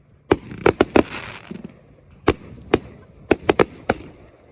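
Fireworks going off: about ten sharp bangs at irregular intervals, several in quick succession about a second in and again past three seconds.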